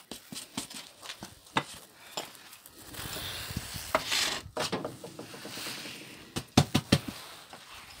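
Baked loaves being lifted out of a wood-fired oven and handled: scattered knocks and scrapes on the oven's iron floor, with a few sharper knocks close together near the end, over a faint rustle of cloth.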